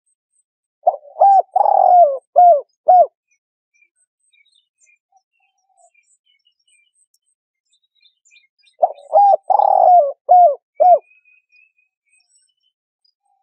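Spotted dove cooing: two phrases of about five coos each, the notes bending downward at their ends, several seconds apart. Faint high chirps of small birds sit behind them.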